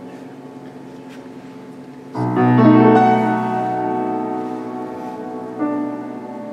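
Grand piano played solo: soft held notes, then about two seconds in a sudden loud chord with deep bass notes that rings and slowly fades. Another accented chord is struck near the end.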